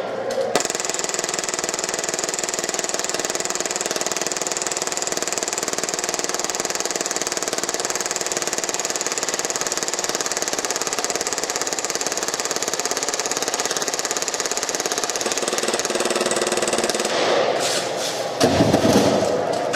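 Action Army AAP-01 gas blowback airsoft pistol firing continuously on full auto, a rapid even rattle of the cycling slide, held for about sixteen seconds as one long mag dump of a high-capacity magazine, then stopping. A few clicks and a short thump follow near the end.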